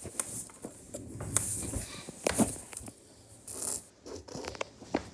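Pen scratching across paper in several short strokes, with small clicks and taps in between.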